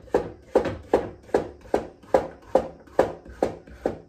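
Sliced cucumber being tossed with salt in a bowl: an even run of knocks, about two and a half a second, each with a short ring from the bowl.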